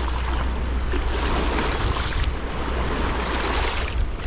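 Wind on the microphone over the steady rush of choppy river water washing against a rocky bank.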